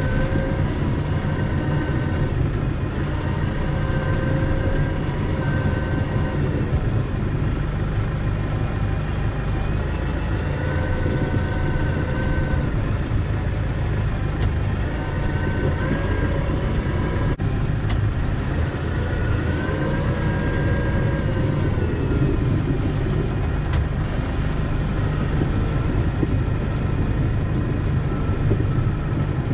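Snowplow vehicle's engine running steadily with a low rumble, with a higher whine that rises and falls in pitch several times.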